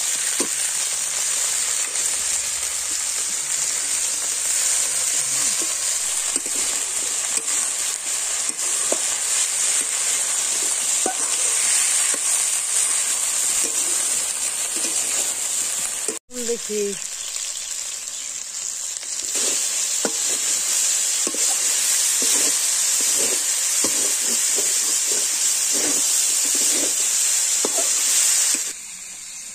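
Broccoli stir-frying in hot oil in a large metal wok: a steady sizzle, with a flat metal spatula scraping and tapping against the pan as it turns the florets. The sound breaks off briefly about halfway and stops suddenly near the end.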